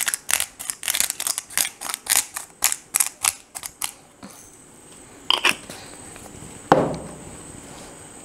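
Hand-twisted seasoning grinder grinding, a rapid run of crunchy clicks about four a second that stops after about four seconds. A couple of light knocks follow, then a single louder thump.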